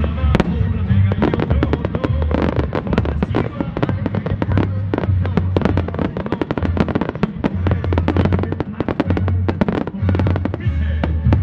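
Rapid volley of fireworks from a musical starmine: dozens of shell bursts and launches in quick succession, thinning out near the end. Loud show music with a heavy bass beat plays underneath.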